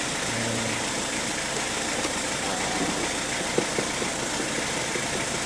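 Engine idling steadily, with a few light clicks near the middle.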